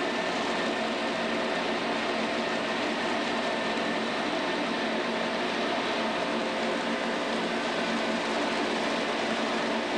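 A fishing vessel's engine and deck machinery running, a steady, unchanging drone with a few faint held tones.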